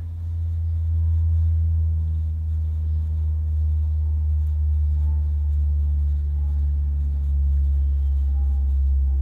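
A steady, loud low hum, with faint scratching of a pencil drawing small strokes on paper.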